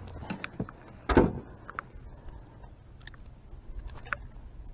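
Small clicks and knocks from handling a freshly caught crappie and its line, with one louder thump about a second in.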